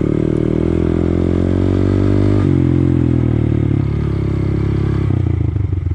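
Honda Grom's single-cylinder engine running under way, its pitch rising slightly, then dropping sharply about two and a half seconds in as the revs fall. Near the end the engine slows further into a slower, uneven beat.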